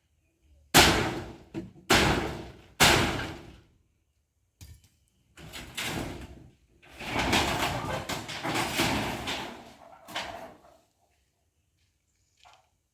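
Three heavy hammer blows about a second apart, each ringing off, as the pit latrine is knocked apart. They are followed by a longer crashing, rattling clatter of the structure and its debris giving way, with one more knock near the end.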